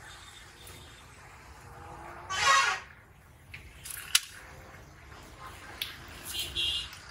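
A plastic squeeze bottle of sauce squirting and sputtering once, briefly, about two seconds in, over a low hum of street traffic, with a sharp click a little later.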